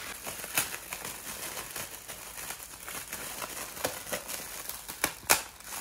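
Gift wrapping crinkling and rustling as a present is unwrapped, with a few sharp crackles, the loudest near the end.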